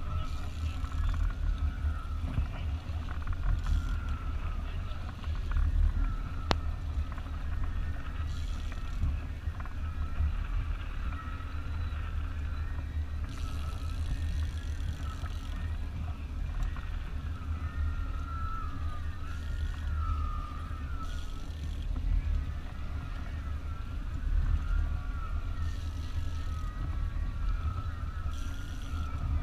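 A boat's motor running under wind on the microphone, a steady low rumble. Above it, a thin wavering whine, with a few brief hissy swells.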